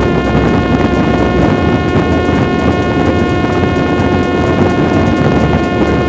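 Parrot Disco's electric pusher motor and propeller running steadily at cruise power: a held whine with several evenly spaced tones over a loud rush of air.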